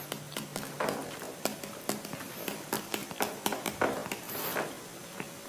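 Computer keyboard typing: quiet, irregular key clicks, a few a second.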